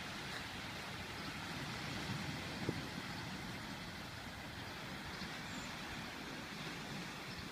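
Small waves washing onto a sandy beach, with wind rumbling on the microphone and one short click about two and a half seconds in.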